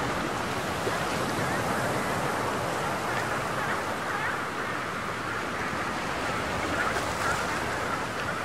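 Steady rush of choppy sea water and wind on open water, with a few faint, short, higher sounds now and then.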